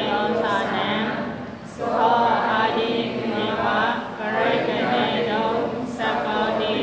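Pali text chanted aloud as a steady recitation, in phrases of about two seconds with short pauses between.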